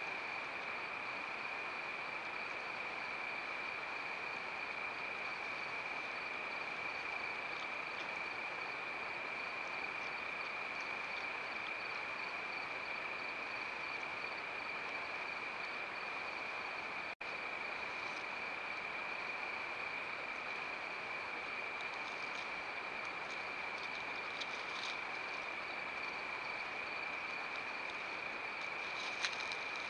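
Crickets trilling steadily on one high pitch over heavy microphone hiss. The sound drops out for an instant about two-thirds of the way through, and a few faint ticks come through near the end.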